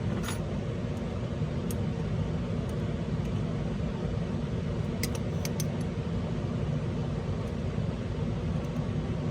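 Steady low background hum, with a few faint light clicks of small parts being handled, a cluster of them about five seconds in.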